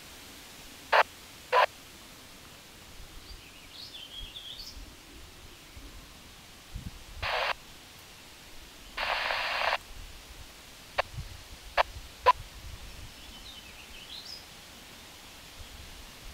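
Bursts of radio static cutting in and out: two short crackles about a second in, longer hissing bursts around seven and nine seconds, then three sharp clicks. Faint bird chirps in between.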